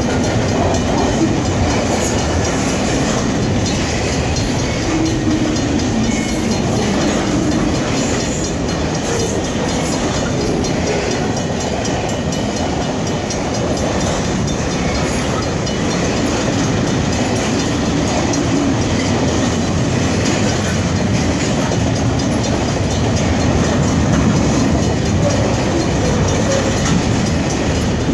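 Double-stack intermodal container train's well cars rolling past, their steel wheels running steadily on the rails.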